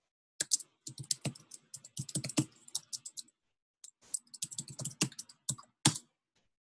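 Typing on a computer keyboard: quick runs of key clicks, with a short pause about three seconds in before a second run of keystrokes.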